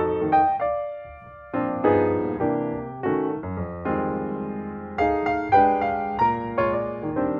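Background piano music: single notes and chords struck and left to ring and fade, with a brief lull about a second in.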